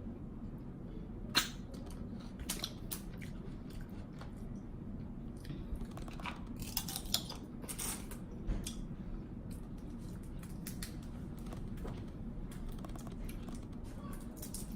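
Crab leg shells cracking and crunching as they are broken open and picked at by hand, with wet chewing and lip smacking. Sharp cracks come scattered through, the loudest about a second and a half in and a cluster of them around the middle.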